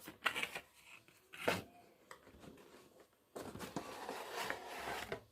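Processor retail-box packaging being handled and opened: a few light clicks and taps, then about two seconds of steady rustling and sliding of cardboard and plastic.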